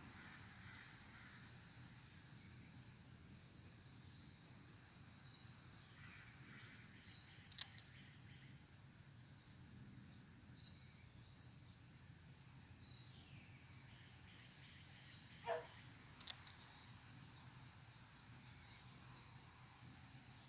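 Near silence: faint outdoor ambience with a faint high insect hum, broken by two short sharp clicks, one about a third of the way in and one about three quarters in, the second just after a brief chirp.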